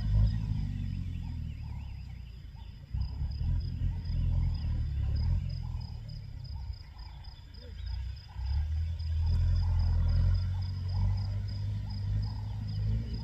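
Massey Ferguson 290 tractor's diesel engine running under load while ploughing, its sound fading and swelling again twice.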